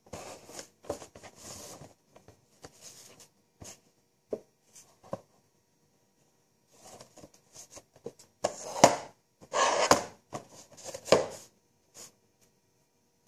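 Cardboard and plastic packaging being handled and opened by hand: irregular rustling, scraping and small knocks, with a few louder tearing or scraping bursts in the second half.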